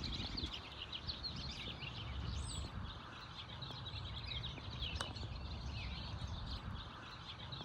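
Many small birds chirping in quick, overlapping short calls over a low background rumble, with a single sharp click about five seconds in.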